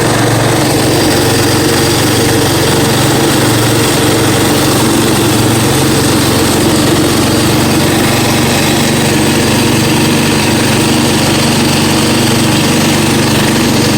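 1970s Briggs & Stratton single-cylinder engine of a 1972 Bradford Stinger lawn tractor running steadily, close up and loud.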